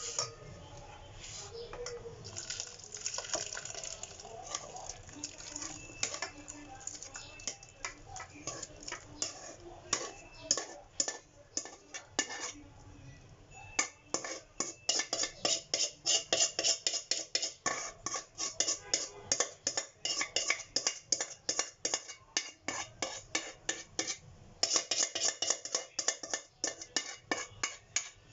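A utensil knocking and clinking against cookware in a kitchen: sparse at first, then a fast, steady run of strikes, about three or four a second, from about halfway in.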